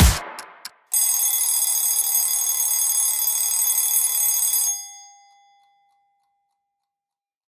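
Alarm clock bell ringing steadily for about four seconds, preceded by two short clicks: the alarm going off as the countdown reaches zero. The ringing stops abruptly, leaving a single tone that fades away over about two seconds.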